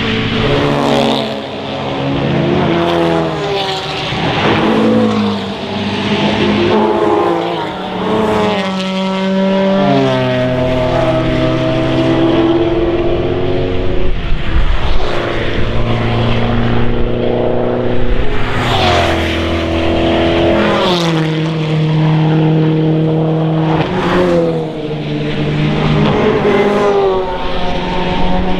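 Racing cars passing one after another at speed, their engines running hard and climbing up through the gears, with the pitch rising and then stepping down at each shift.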